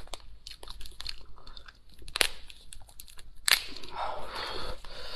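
Cooked lobster shell being cracked and pulled apart by hand: small crackles throughout, with two sharp cracks about two and three and a half seconds in, then a longer stretch of crunching and crackling.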